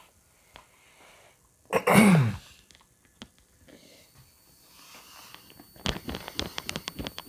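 A man's short groaning exhale, falling in pitch, about two seconds in, as pressure is pushed onto his back during a chiropractic adjustment. Near the end comes a quick run of light taps, about six a second.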